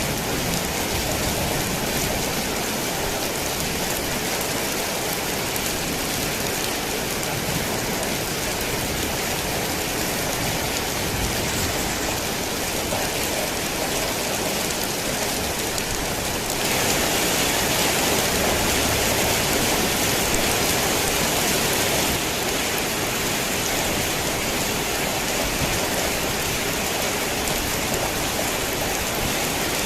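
Heavy rain on a tin roof, a steady dense hiss of drops. A little past halfway it turns louder and brighter for about five seconds, then settles back.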